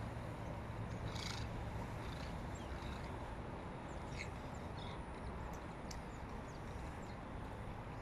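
Smooth-coated otters giving short, high chirps and squeaks now and then, over a steady low rumble.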